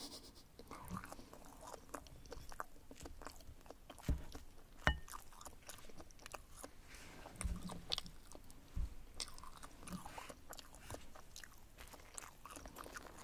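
Close-up eating sounds: chewing a soft souffle omelette, with light taps and scrapes of a metal knife and wooden fork on a ceramic plate. Two sharp clinks about four and five seconds in, the second ringing briefly.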